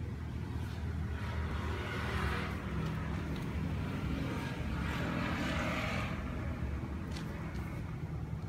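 Yamaha Jog 50's small two-stroke engine running steadily at idle on a programmable CDI ignition.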